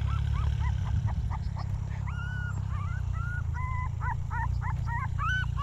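A puppy crying for help: a run of high, arched whimpers and yelps, a few a second, growing longer and louder toward the end, over a steady low rumble.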